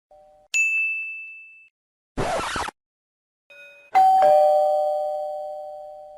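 A string of short sound effects. A single high bell ding comes about half a second in, and a brief burst of noise about two seconds in. Then, the loudest, a two-note ding-dong doorbell chime (high note, then low) rings out slowly.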